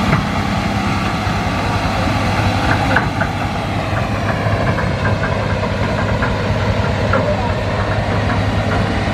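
Hitachi excavator's diesel engine running steadily with a low hum, with light scattered clicks and knocks from about three seconds in.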